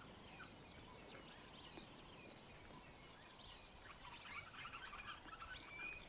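Faint natural bush ambience: scattered short bird chirps, thickening into a busy run of chattering calls about four seconds in, over a steady faint high insect hiss.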